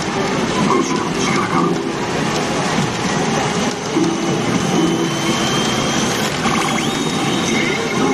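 Godzilla vs. Evangelion pachinko machine playing its King Ghidorah reach sequence: a loud, steady wash of battle sound effects and machine noise, with a thin high tone that rises slightly near the end.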